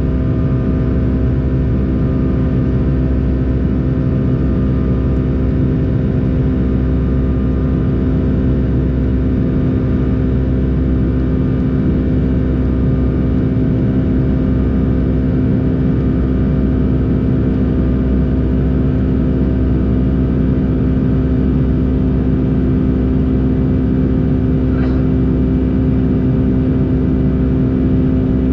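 Boeing 757-200's jet engines running steadily, heard inside the passenger cabin as a constant droning hum with several held tones over a low rumble.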